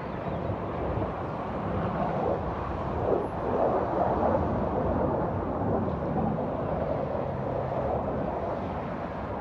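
Distant jet roar from Air Force Thunderbirds F-16 fighter jets flying over, swelling about two seconds in and easing off after about five seconds.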